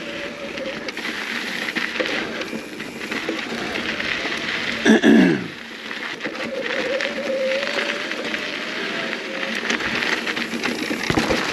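Mountain bike rolling down a dirt singletrack: tyres crunching over dirt and rock, with rattles and knocks from the bike. A thin, wavering squeal comes from the front disc brake, whose pads are dragging on the rotor; it is heard briefly at the start and again for a few seconds in the second half. About five seconds in there is one short loud sound that falls in pitch.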